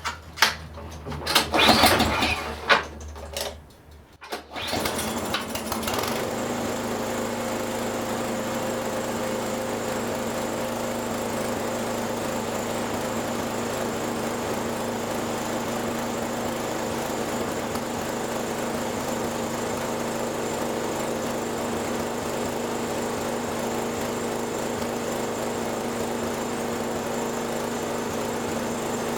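Toro Power Max 724 snowblower's small gas engine being pull-started: a few loud uneven bursts, then about four and a half seconds in it catches and settles into steady running. It is running well now that its carburettor trouble from ethanol fuel has been fixed.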